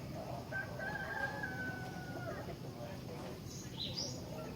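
Sooty-headed bulbul (kutilang) singing: one long whistled note that falls slightly, then a few quick high chirps near the end, over a busy mix of other sounds.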